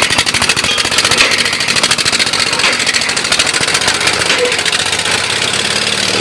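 Stationary diesel engine running with a rapid, even knocking beat, powering a water-well boring rig.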